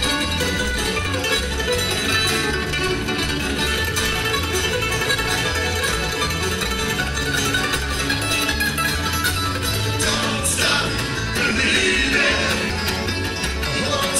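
Live bluegrass-style band playing acoustic guitars, banjo and mandolin, with a steady beat.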